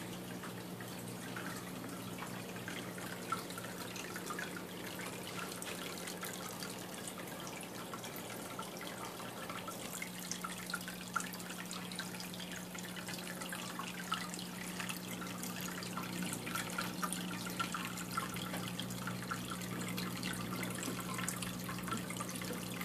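Water in a baby turtle tank trickling and dripping steadily, with many small drips, over a steady low hum.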